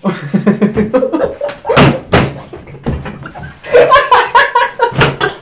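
Two men laughing hard in repeated bursts, with a few sharp knocks mixed in.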